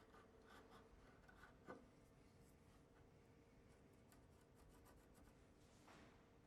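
Near silence with faint scratching of a marking gauge scoring a short line into the wooden edge of a door, and one soft knock a little under two seconds in.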